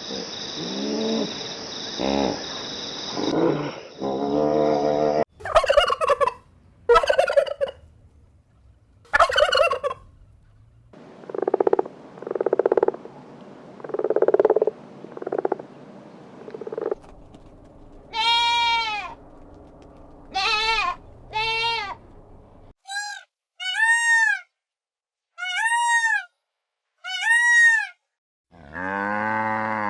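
Domestic fowl calling in a series of short clips, the kind of call changing every few seconds: a chatter of calls at first, then low repeated honks, then a string of separate rising-and-falling cries about once a second.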